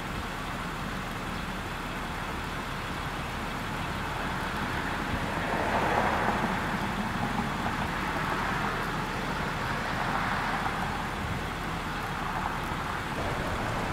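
Distant road traffic: a steady rumble that swells louder from about five to eleven seconds in as a vehicle passes.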